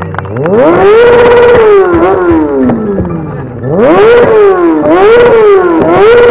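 Motorcycle engine revved hard while standing still: the pitch climbs and holds at the top for about half a second, falls away, then is blipped up again about four more times in quick succession.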